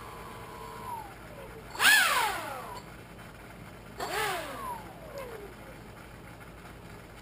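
A Pro Boat 1/10-scale RC airboat's brushless motor and air propeller whining in two throttle bursts. The first, about two seconds in, is the louder; the second comes about two seconds later. In each the pitch rises briefly and then slides down as the whine fades.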